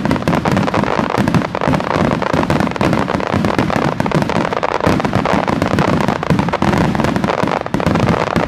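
Starmine fireworks barrage: shells launching and bursting in rapid succession, a dense, unbroken volley of sharp cracks and booms, many a second.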